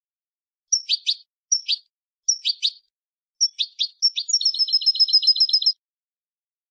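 Wild-type European goldfinch singing: several short, sharp chirped phrases with pauses between them, then a fast trill of about nine evenly repeated notes a second that ends abruptly.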